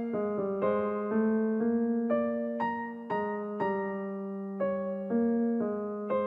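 Background music: a gentle piano or electric-piano melody, notes struck about twice a second and left to ring out.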